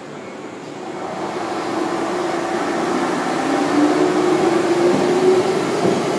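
Enshu Railway electric train running along the platform. The sound grows louder over the first two seconds, with a wavering hum under the running noise.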